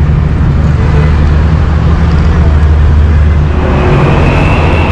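Road traffic: a motor vehicle engine running close by, with a steady low hum that drops away about three and a half seconds in.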